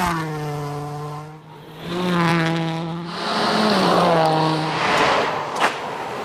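Rally car engine running hard as the car speeds past on a gravel road, its pitch bending as it passes. It is heard over several passes, with a dip about a second and a half in and a rushing noise on top in the second half.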